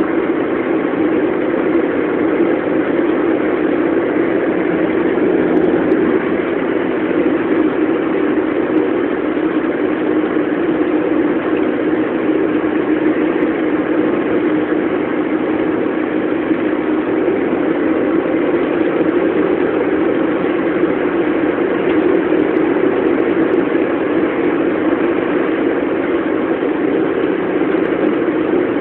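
Steady engine and road noise of a car being driven, even and unchanging throughout.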